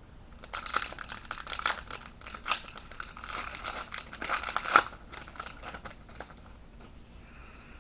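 A trading-card pack's wrapper being torn open and crinkled, a dense run of crackles that stops about five seconds in, with its loudest crackle just before it stops.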